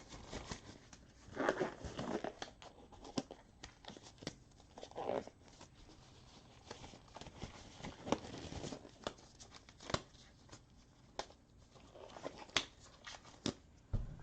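Close handling noises on a desk: short bouts of crinkling and rustling amid many scattered sharp clicks and taps.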